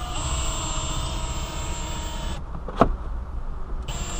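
A steady mechanical drone with a few even whining tones and a low rumble. A single sharp click comes about two-thirds of the way through.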